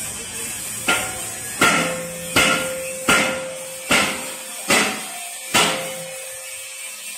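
A run of seven sharp, evenly spaced knocks, about one every three-quarters of a second, each ringing briefly.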